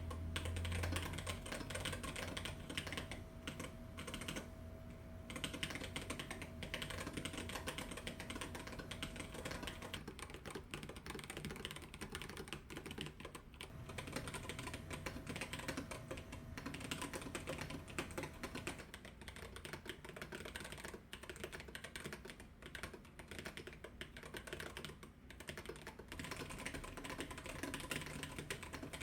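Steady typing on an Apricot sub-40% mechanical keyboard with a polycarbonate plate and foam, fitted with KAM-profile bouquet keycaps: a continuous run of quick key clacks.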